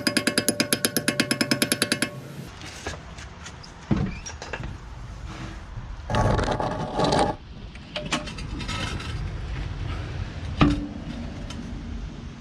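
Rhythmic percussive music for about two seconds, then workshop tool noises: scattered clunks and knocks, a louder noisy stretch lasting about a second from six seconds in, and a sharp knock near the end.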